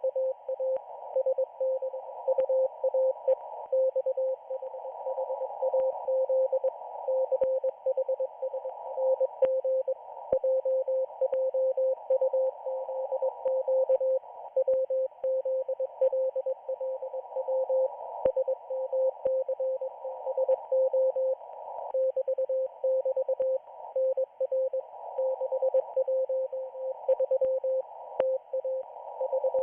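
Morse code from the Israeli Navy radio station 4XZ, heard on a shortwave receiver: a single mid-pitched beep keyed in dots and dashes over a narrow band of hiss, with scattered faint static clicks.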